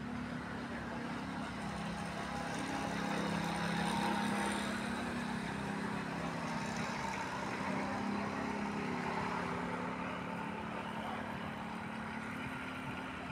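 Steady low mechanical hum over a bed of noise, swelling slightly about four seconds in.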